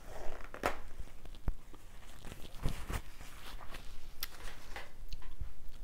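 Eating noises: chewing, and the rustle and tear of a paper tissue being pulled out and wiped across the mouth, with a few light clicks and knocks.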